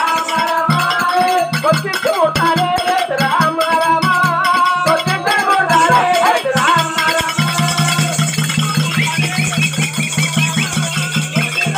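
Loud folk dance music: a wavering melody over a fast, steady beat, with constant jingling like a rattle or bells.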